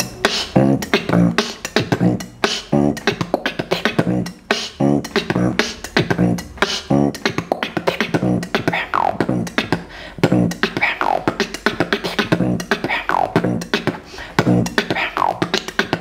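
Solo human beatboxing: a fast, even beat of percussive mouth clicks and snaps over a low hummed bass line. In the second half, falling pitched vocal sweeps come in between the beats.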